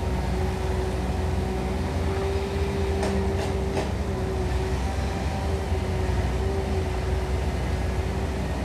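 Caterpillar long-reach excavator's diesel engine running steadily under working load, with a low rumble and a steady hum, as it digs and swings buckets of mud. A few short clanks about three to four seconds in.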